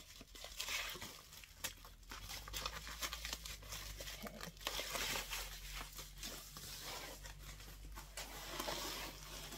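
Packaging crinkling and rustling in the hands as a handbag's crossbody strap is taken out and handled, an irregular stream of small crackles.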